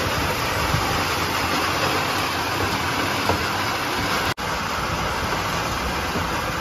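Heavy downpour on a road: a loud, dense, steady rush of rain. It breaks off for an instant about four seconds in, then continues.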